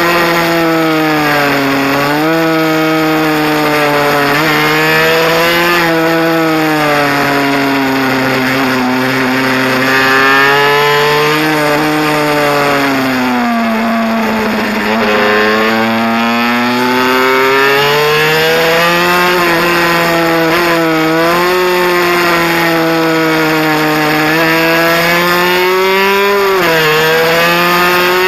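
Honda NSR mini bike's two-stroke engine running hard on track, its pitch rising and falling over and over as the rider opens and closes the throttle; it sinks low and slowly climbs back about halfway through, and drops sharply once near the end.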